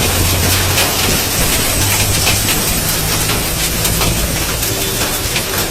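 Hailstones pelting down in heavy rain: a dense, steady hiss of rain with many sharp ticks and knocks of hail striking surfaces.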